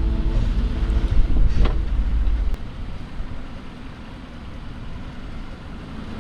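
Off-road SUV running on a steep trail climb, with wind buffeting the microphone. A heavy low rumble, with a sharp knock about a second and a half in, cuts off abruptly about two and a half seconds in and gives way to a quieter, steady rumble and hiss. Fading steady tones lie under the first second.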